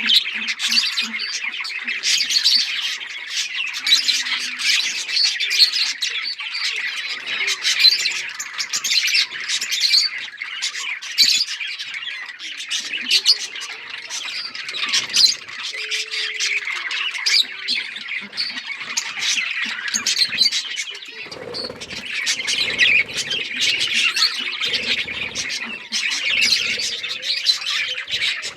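A flock of budgerigars chirping and squawking continuously, many birds calling over one another at once.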